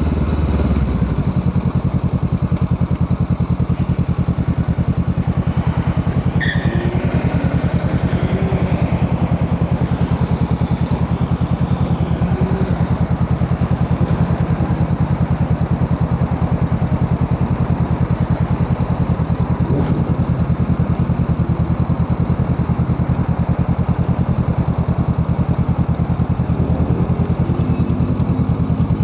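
Honda Rebel 500 parallel-twin engine running steadily through an aftermarket Musarri exhaust muffler, an even stream of exhaust pulses.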